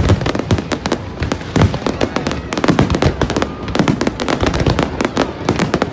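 Fireworks going off in a rapid, continuous barrage of bangs and crackles, many per second.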